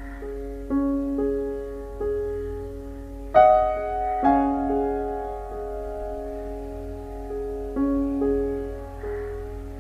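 Gentle background piano music: slow, soft notes and chords that ring on, with a louder chord a little past the midpoint.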